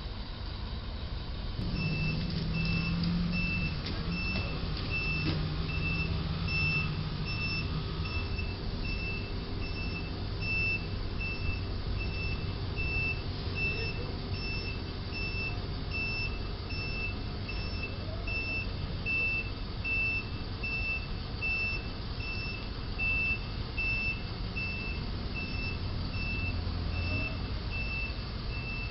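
Box truck's backup alarm beeping steadily, about one and a half beeps a second, over the low hum of the truck's engine: the truck is reversing. The beeping starts about two seconds in.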